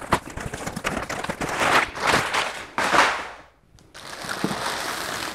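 A large cardboard box being opened: tape and cardboard flaps tearing and scraping in a few loud swells, then quieter rustling after a brief pause.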